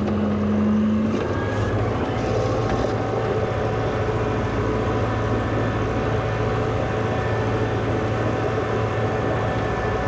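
Engine of a 1963 Volvo LM225 wheel loader running steadily, a constant hum; a higher tone drops out about a second in.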